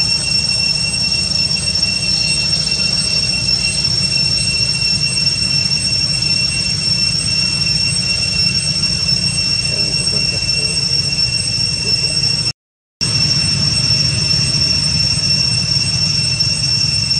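Steady high-pitched insect drone, cicada-like, over a low rumble; the sound drops out for a moment about three-quarters of the way through.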